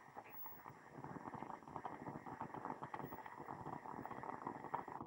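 Stovetop moka pot gurgling and sputtering on a gas burner, a fast irregular crackle that grows about a second in: the last coffee and steam are being forced up into the top chamber at the end of brewing.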